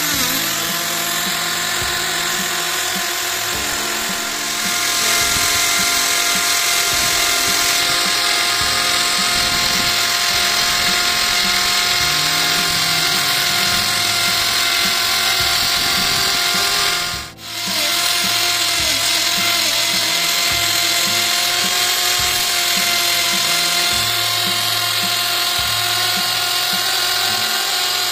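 Electric hand drill running steadily and, through a belt, spinning a small grinding stone against the point of a rotating lathe live center: a continuous motor whine with the hiss of the stone grinding the center's damaged tip back to a true point. The sound drops out briefly about two-thirds of the way through.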